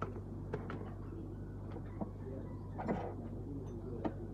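Tools and hands working on the underside of a Suzuki Wagon R's engine: about five sharp metal clicks and knocks, the loudest about three seconds in, over a steady low hum.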